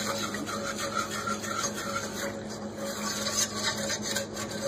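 Utensil stirring and scraping against the bottom of a pan of roux-and-milk cream sauce, a run of short, irregular rasping strokes.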